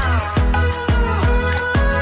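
Background music with a steady beat: a heavy kick drum about twice a second over deep bass and synth tones.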